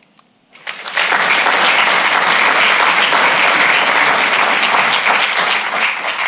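Audience applauding: clapping starts about half a second in after a brief quiet and holds steady, beginning to die down near the end.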